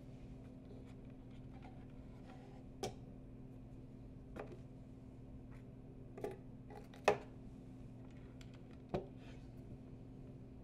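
A wooden box being handled, its lid opened and shut, giving a few short light knocks and clicks, the loudest about seven seconds in. A steady low hum runs underneath.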